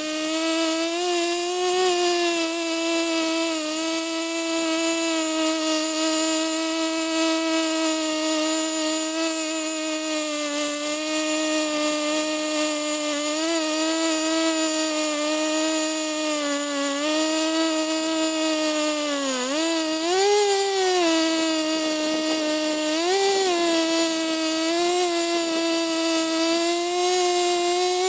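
Two-stroke chainsaw running at high revs while cutting a large tree, a steady high engine note. About two-thirds of the way in the pitch sags as the chain bogs under load, then climbs back with two short revs.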